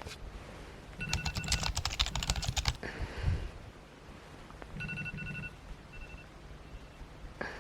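A rapid run of clicks, like keys being typed, with short electronic beeps mixed in, followed a couple of seconds later by a few more brief beeps.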